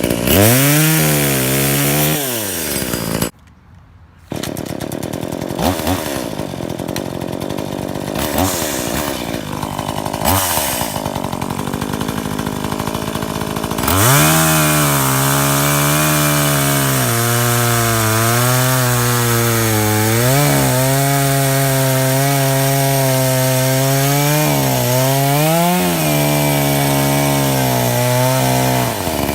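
Brand-new Tanaka 14-inch top-handle chainsaw's two-stroke engine on its first run: revved once, dropping out briefly about three seconds in, then running low with a few short throttle blips. From about halfway it is held at high revs, its pitch sagging and picking up again several times.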